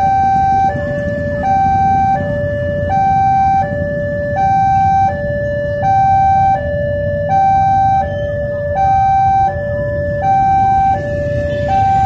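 Railway level-crossing warning alarm sounding while the barrier is down: an electronic two-tone signal switching between a lower and a higher pitch about every three quarters of a second, the higher tone louder. A low rumble of waiting road traffic lies underneath.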